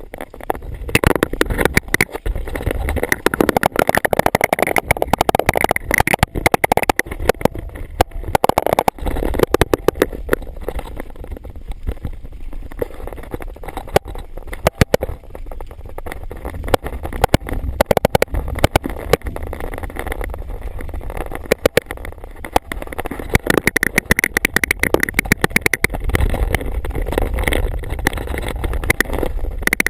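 Electric recumbent trike riding over rough ground, heard through a handheld action camera: wind buffeting the microphone with a low rumble, and frequent irregular clicks and rattles from the camera and trike.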